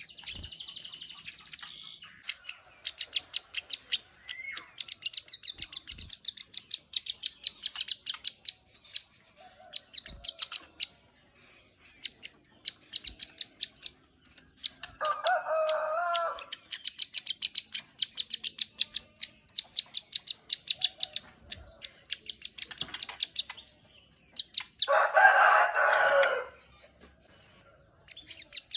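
Plain prinia (ciblek sawah) singing energetically: repeated bursts of fast, high clicking trills, a few seconds each with short pauses. Twice, a louder, lower call of about a second and a half from another bird cuts in, once midway and once near the end.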